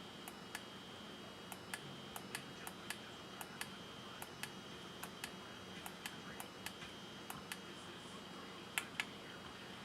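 Faint, irregular small clicks and taps, about two or three a second, with a louder pair near the end, over a faint steady high-pitched whine.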